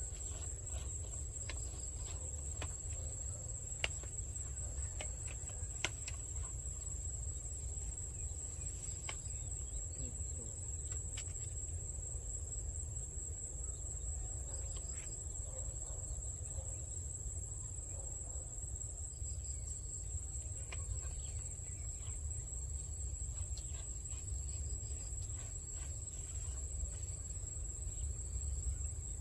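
Steady high-pitched insect trill, like crickets, over a low rumble, with a few faint clicks.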